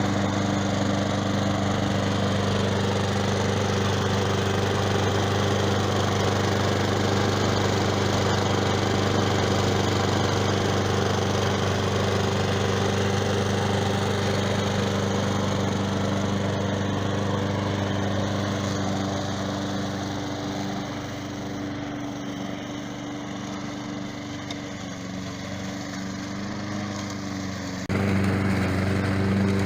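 Engine of a remote-controlled tracked lawn mower running steadily. It grows somewhat fainter about two-thirds of the way through, then turns suddenly louder again near the end.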